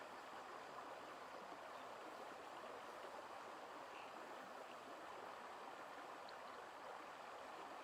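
Faint, steady rush of running water, with a few tiny high chirps.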